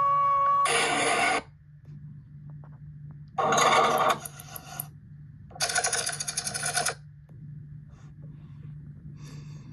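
Electronic sound effects from Power Rangers zord toys played through a small speaker: three jangly, bell-like bursts of about a second each, the last one longer, over a steady low hum.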